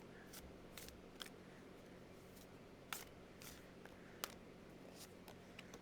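Near silence with a few faint, sharp clicks and taps of tarot or oracle cards being handled.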